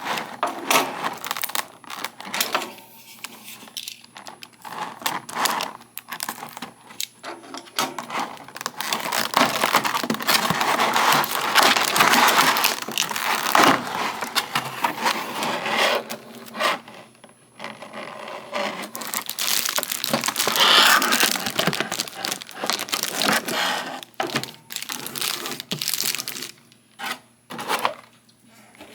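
Plastic packaging crinkling and rustling, with irregular clicks, scrapes and knocks of cardboard and hard plastic parts, as the pieces of a boxed figure are unpacked.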